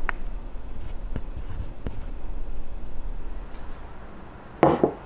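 A large ceramic bowl set down on a table, a short double clunk near the end. Before it come a few faint clicks and handling noises over a low steady hum.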